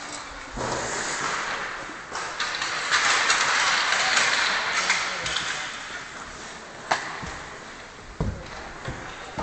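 Ice-skate blades scraping and hissing on the ice as hockey players skate past, swelling and then fading. A sharp crack comes about seven seconds in, and a couple of dull thuds follow shortly after.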